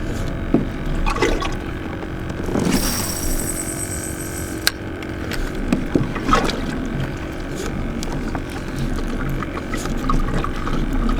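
Water lapping and trickling against the hull of a Hoodoo Tempest 120P kayak, with scattered light knocks and a brief hiss about three seconds in.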